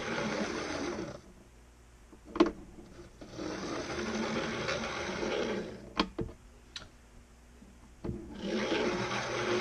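Model Class 155 Sprinter's electric motor running in three spells of a few seconds each, a steady whirring buzz, with sharp clicks in the gaps between. The loco is being test-run after repair and sounds pretty decent.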